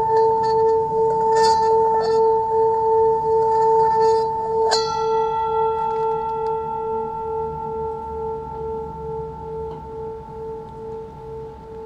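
Singing bowl ringing with a steady, wavering hum. It is struck again about five seconds in, adding brighter overtones, and the ring slowly fades away.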